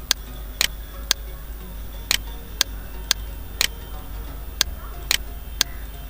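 Computer mouse clicking, about ten sharp clicks at an even half-second pace with a gap or two, several of them doubled, over a low steady hum.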